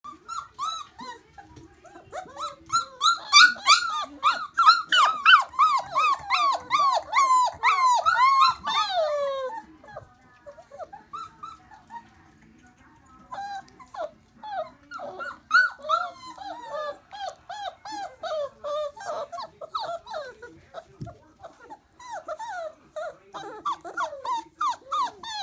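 Four-week-old wolfdog puppies whining and whimpering: a rapid run of short, high-pitched cries, each falling in pitch, several a second. The cries are loudest over the first ten seconds, ease off briefly, then start up again more softly.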